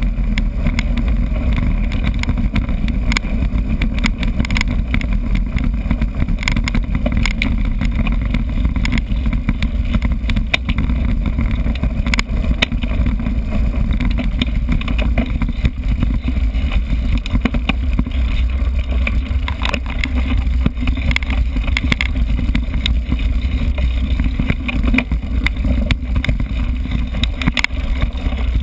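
Wind rumbling on a GoPro microphone as a mountain bike rides over a bumpy grass and dirt track, with frequent rattles and knocks from the bike over the bumps.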